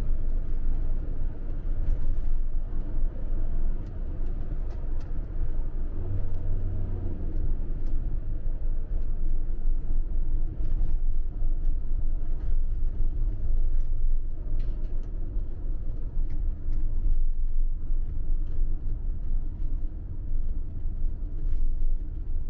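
Camper van on the move, heard from inside the cab: a steady low rumble of engine and road noise.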